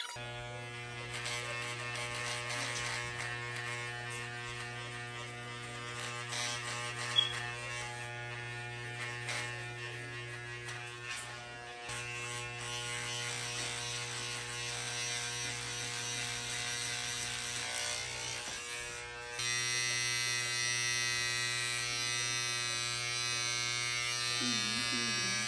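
Corded electric hair clippers running with a steady buzz while cutting hair short, with a single sharp click about seven seconds in. Near the two-thirds point the buzz grows louder and hissier.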